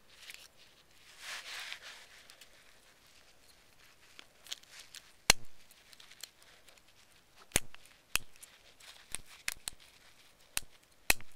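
Plastic parts of a BlackBerry Bold 9000 being pressed back together by hand. A soft scrape comes about a second in, then a run of sharp, separate clicks as the pieces snap into place; the loudest are about five seconds in and near the end.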